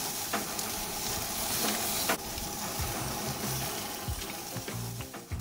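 Chicken sizzling on a barbecue grill: a steady hiss that thins out over the second half as soft background music comes in.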